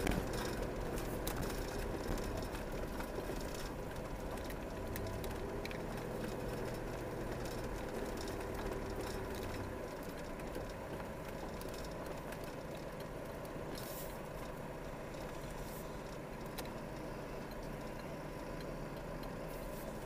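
Car running along a road, heard from inside the cabin: steady engine and tyre noise. A low hum drops away about halfway through, and a few light clicks or rattles come around two-thirds of the way in.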